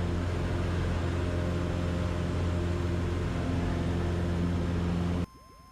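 Cessna 150's Continental O-200 four-cylinder engine and propeller droning steadily in the climb, heard inside the cockpit. The drone cuts off abruptly near the end, leaving only a faint steady tone.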